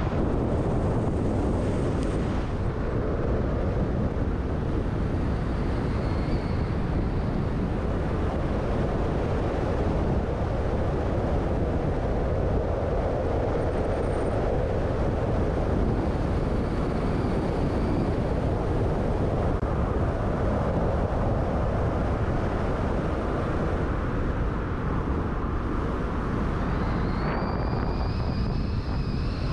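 Car driving with steady road and engine noise. A faint high whine comes and goes a few times and is strongest near the end.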